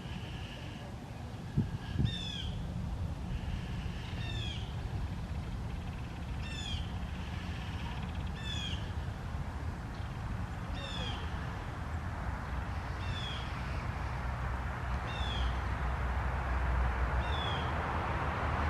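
A bird giving the same short, harsh call over and over, about once every two seconds, over a steady low rumble. There are two brief knocks about a second and a half in.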